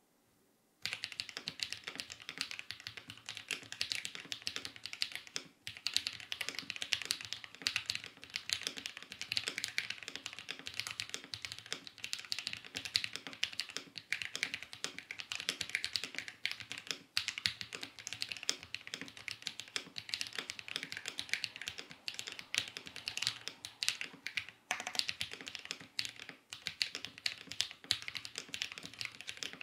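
Fast touch-typing on mechanical keyboards, a Zoom TKL among them: a dense, even stream of keystroke clacks at roughly 100 words a minute, starting about a second in. A few short breaks mark switches, and after the last one, near the end, the clacks sound fuller.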